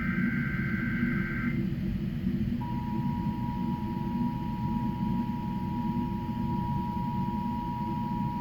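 Emergency Alert System monthly test tones: the last burst of the digital SAME header, a buzzy two-pitch data screech, ends about a second and a half in. About a second later the steady two-tone EAS attention signal starts and holds. A steady low hum runs underneath.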